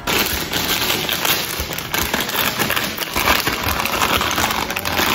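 Thin plastic packaging crinkling and rustling continuously as a plastic bag is handled.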